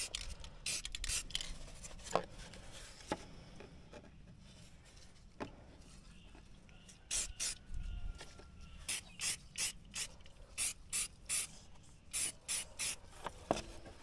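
Rust-Oleum aerosol spray paint can hissing in runs of short bursts, a few a second, with quieter pauses between runs.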